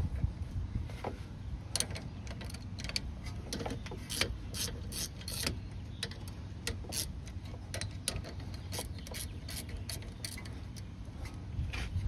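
Ratchet wrench with a 14 mm socket clicking in quick, irregular runs of sharp ticks as the rear brake caliper bolts are run in, starting about two seconds in.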